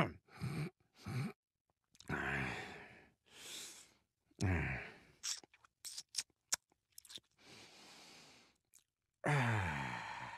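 A man making 'dad noises': a string of sighs and groans with lip smacks and mouth clicks between them, ending in a long groan that falls in pitch.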